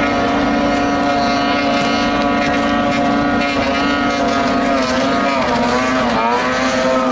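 Outboard motors of racing boats running at high revs, a steady high-pitched engine whine; in the last few seconds the pitch wavers, dipping and climbing again as the engines' revs change.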